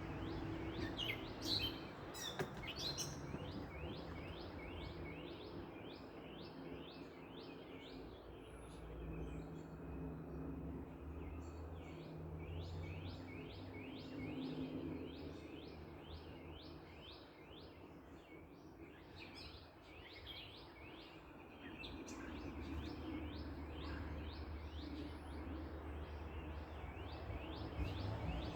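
Backyard ambience: a bird repeats short chirps over and over, about two or three a second, with a few louder chirps about a second or two in, over a low rumble of distant traffic.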